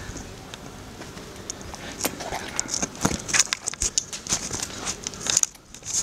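Close scattered clicks, scuffs and crackling rustles, sparse at first and much denser from about two seconds in.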